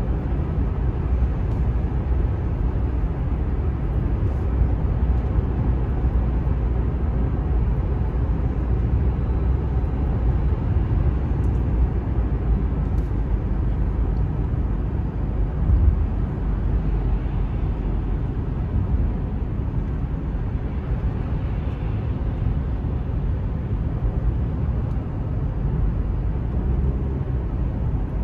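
Steady road noise heard inside a moving car's cabin: a low rumble of tyres and engine, with one brief louder bump about 16 seconds in.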